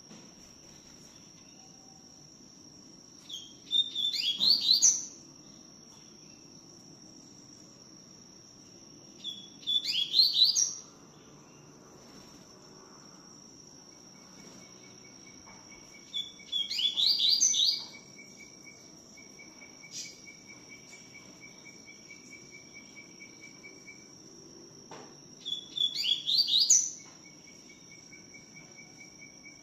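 Double-collared seedeater (coleiro tui-tui) singing: four short bursts of quick, high notes, each about a second and a half long, several seconds apart. A steady high insect-like tone runs underneath.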